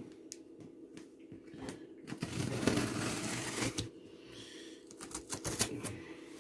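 A knife slitting the packing tape on a cardboard box: a scratchy rasp about two seconds in, lasting over a second, with scattered clicks and taps against the cardboard, bunched together about five seconds in.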